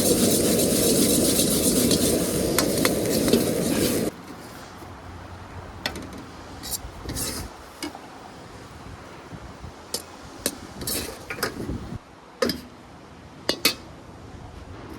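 A loud, steady rushing noise that cuts off suddenly about four seconds in. After it, a spatula scrapes and clicks against the wok as fried rice is stirred, with scattered sharp knocks.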